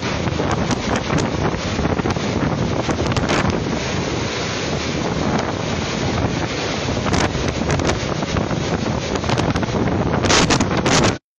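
Typhoon-force wind and driving rain blowing against the phone's microphone: a loud, steady rush with scattered crackles. It swells just after ten seconds in, then cuts off suddenly near the end.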